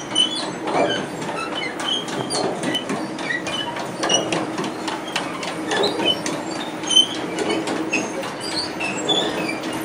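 Chain conveyor of a Storti log-sorting line running, its steel chains rattling and clanking over the sprockets with short, irregular squeaks above a steady drive hum.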